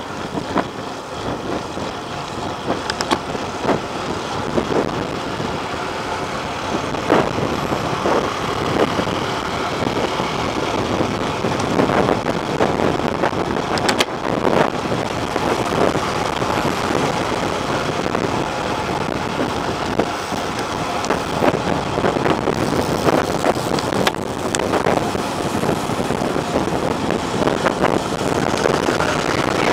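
Wind rushing over the microphone of a camera riding in a road bike race, with steady road and tyre noise and scattered sharp knocks from bumps.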